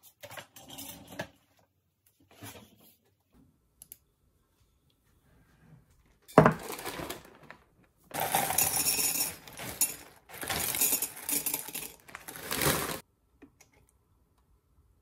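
Dry breakfast cereal poured from a foil bag into a ceramic mug, the pieces rattling and clinking against it in three long pours. A single sharp knock comes a few seconds before, the loudest sound here.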